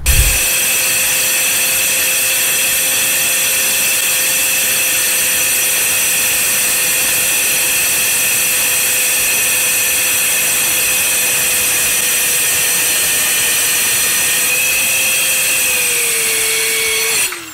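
Corded mini circular saw with a 24-tooth carbide blade running steadily while it cuts through a board fed by a weighted sled. The motor whine holds one pitch, sags slightly near the end, then stops.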